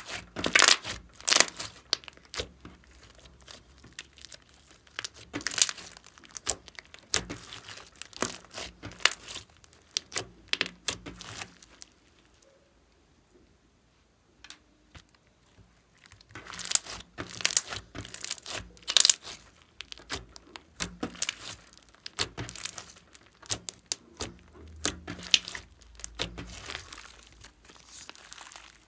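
Hands squeezing and stretching soft, sticky slime: a run of sharp, wet crackles and clicks as it is kneaded and pulled. It falls quiet for a few seconds about halfway through, then the crackling starts again.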